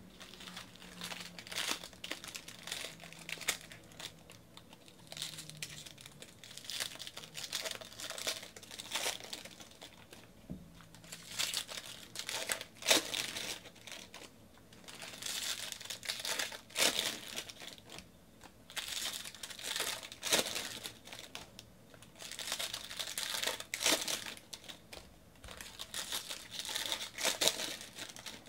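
Foil wrappers of 2019 Bowman baseball card packs crinkling and tearing as the packs are ripped open by hand, in irregular sharp crackles throughout.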